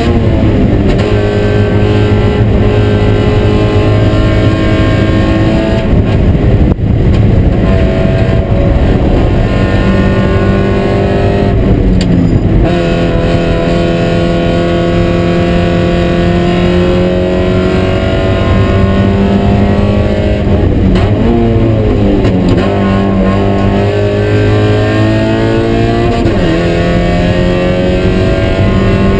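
Spec Miata race car's four-cylinder engine heard from inside the stripped cockpit under hard throttle. The engine note climbs slowly and falls sharply about twelve seconds in, climbs again, then dips and rises several times in quick succession a little past twenty seconds, with another drop near the end.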